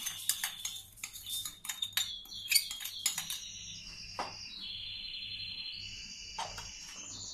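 Caster sugar poured into a stainless-steel mixing bowl, the grains ticking and pattering against the steel, followed by a few clinks and taps of a spoon scraping the last of it out of the small bowl.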